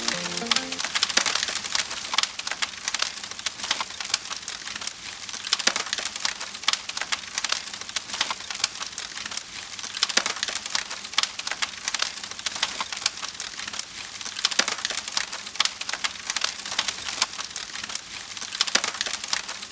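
Fire crackling: a dense, irregular run of small pops and snaps like burning wood.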